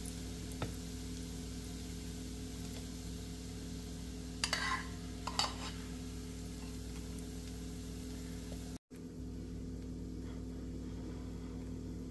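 A metal spoon scraping and clinking against a nonstick skillet and plate as fried mushroom cubes are spooned onto toast: a few short scrapes near the start and again about four and a half to five and a half seconds in, over a steady low hum.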